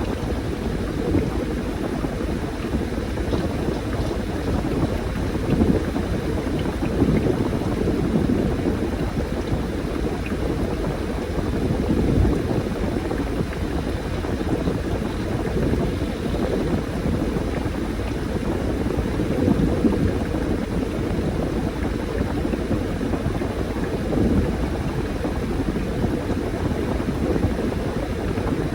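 Washing machine churning a load of laundry: water sloshing and the tumbling load making a continuous low rumble that swells and eases every few seconds.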